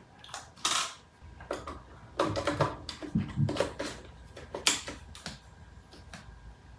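Handling noises from setting up a mirrorless camera and lens: an irregular string of sharp clicks, taps and short rustles of plastic parts and packaging, most of them between about half a second and five seconds in.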